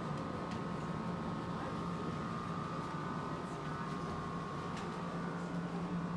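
A steady mechanical hum with a constant high-pitched whine and a low drone underneath, unchanging throughout.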